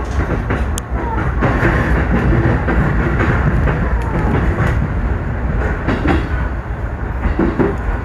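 JR Nambu Line electric commuter train running on the rails, heard from inside the front car: a steady rumble of wheels on track with irregular clacks as the wheels cross rail joints and points.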